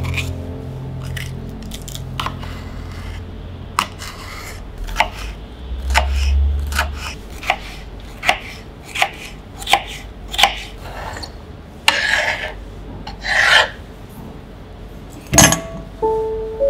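Hand food preparation on a cutting board: a series of irregular sharp strokes with a few longer scraping strokes. Soft background music fades out early and returns near the end.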